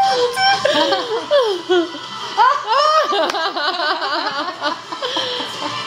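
Several women laughing together, with rapid giggling peaking in the middle.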